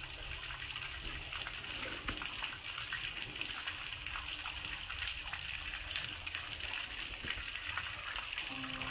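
Water from a garden hose running over a soapy gas grill and spattering onto concrete below: a steady rush of water with scattered drips and splashes.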